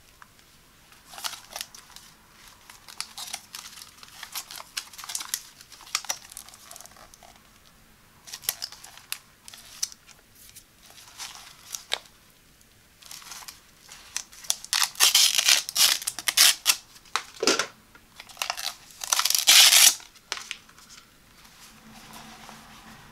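Thin clear plastic film being peeled and crinkled off the hard plastic shell of an eye massager. It makes irregular crackling and tearing bursts that grow louder, peaking in two stretches in the second half.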